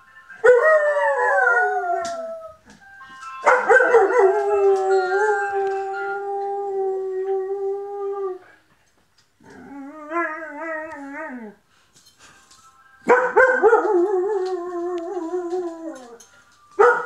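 Saluki–German Shepherd cross dog howling at an ice cream van in a run of long howls. The first howl falls in pitch, the second is held steady for about five seconds, a shorter wavering one follows, and the last slides down again.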